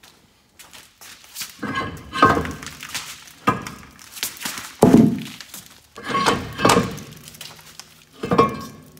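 Heavy cast-iron brake drum on a semi truck's rear axle being worked off its hub by hand, clunking and scraping against the hub and brake shoes. Several separate metal knocks with a short ring, the loudest about halfway through.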